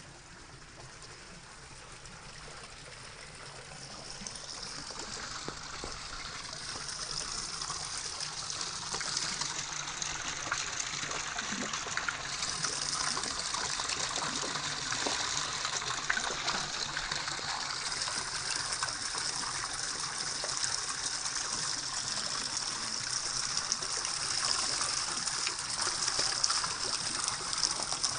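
Running water, a steady rushing and trickling that grows louder over the first several seconds, then holds steady.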